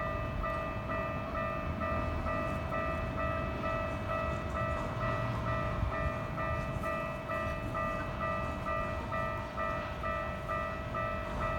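Japanese railway level-crossing warning bell (the "kan-kan") ringing steadily at about two dings a second, over a low rumble.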